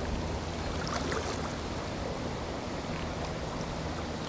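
Steady outdoor wash of lake water and wind, with a low rumble underneath.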